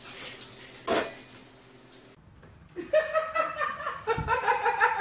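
A person laughing in a quick run of high-pitched pulses, starting about three seconds in. A single sharp knock comes about a second in.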